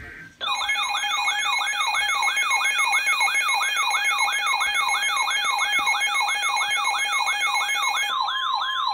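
Electronic emergency alert siren sounding a fast, repeating rising whoop, about three a second, over steady tones, alerting to a new weather warning. About eight seconds in, the steady tones change to a single steady tone while the whooping goes on.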